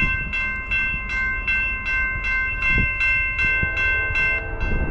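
Railroad grade-crossing bell ringing steadily, about two and a half strokes a second. A distant locomotive horn joins faintly about three and a half seconds in.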